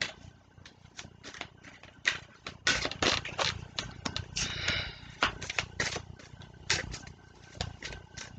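A deck of oracle cards being shuffled by hand: a quick, irregular run of soft card slaps and flicks. A brief higher-pitched sound comes about halfway through.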